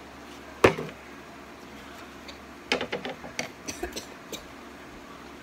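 One sharp knock of a hard object set down on a tabletop, then about two seconds later a run of light clicks and taps as a pair of scissors and a plastic sandwich bag of pancake batter are handled.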